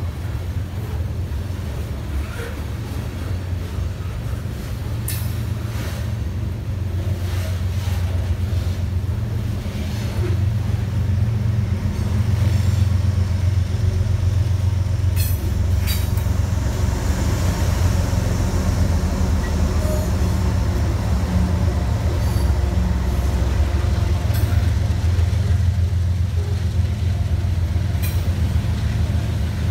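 Freight train of covered hopper cars rolling past: a steady low rumble of steel wheels on the rails, with a few sharp clicks and knocks. It grows somewhat louder about a third of the way through.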